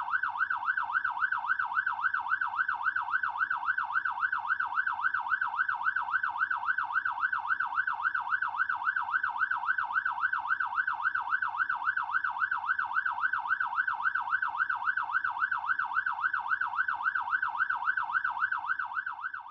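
Fire truck siren in a fast yelp, its pitch sweeping up and down about four times a second, steady and fading out near the end.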